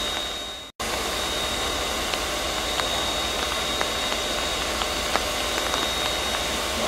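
Steam hissing steadily from a standing steam locomotive, with a thin, high, steady whistle-like tone running through the hiss and a few faint ticks. The sound fades and cuts out for an instant just under a second in, then resumes unchanged.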